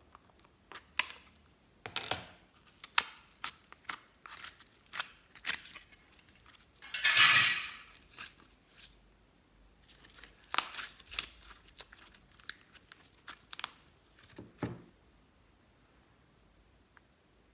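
Slime being handled and mixed by hand: irregular sticky clicks, pops and crackles, with a longer, louder crinkling rustle about seven seconds in. It falls quiet after about fifteen seconds.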